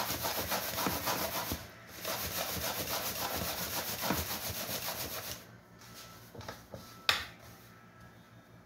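Coxinhas being tossed by hand in breadcrumbs in a round aluminium pan: a steady gritty rustling and scraping that eases off about five and a half seconds in. A single sharp click about seven seconds in.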